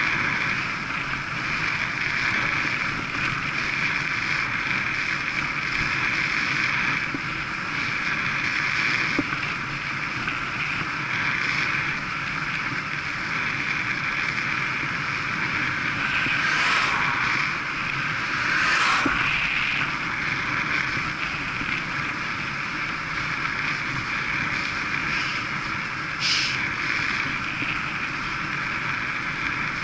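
Steady rush of wind over the microphone of a bike-mounted camera on a road bike at about 26 mph, mixed with tyre noise on tarmac. There are a few brief louder swells, near the middle and again near the end.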